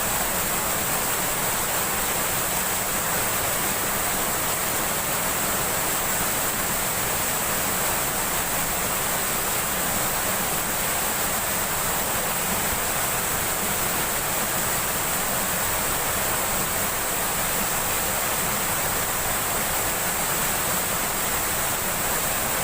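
Steady rushing of fast-flowing river water or a small waterfall, an even, unbroken roar with no let-up.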